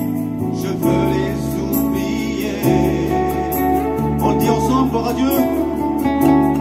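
French Christian worship hymn: held bass notes and chords that change every second or two under a light steady beat, with a voice singing a wavering melody.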